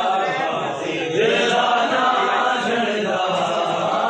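A group of mourners chanting a nauha together, many voices in a steady repeated refrain.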